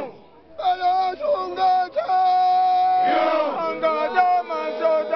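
Guji Oromo men singing a gikkisa, a heroic chant-song, in unison with long held notes, starting after a short pause. About three seconds in one voice sweeps up and back down in pitch above the group.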